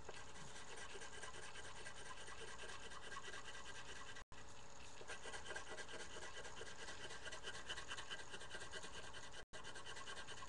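Colored pencil scratching back and forth on paper in quick shading strokes. The audio cuts out for an instant twice.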